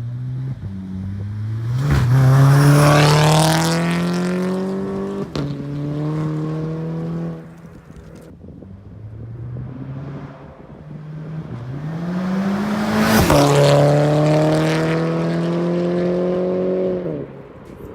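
Volkswagen Mk6 Golf GTI's 2.0-litre turbocharged four-cylinder, breathing through a catless downpipe and aftermarket cat-back exhaust, pulling hard twice. Each time the exhaust note swoops up and keeps climbing for a few seconds, with a sharp crack or two, then drops and dies away as it lets off.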